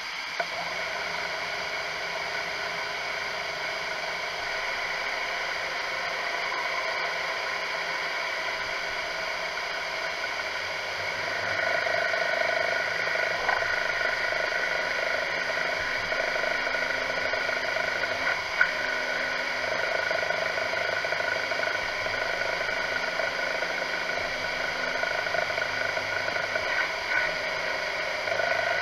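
CNC milling machine drilling holes in a metal plate with a twist drill under flood coolant: a steady whine of several tones from the running spindle over the hiss of the coolant spray, getting louder about eleven seconds in.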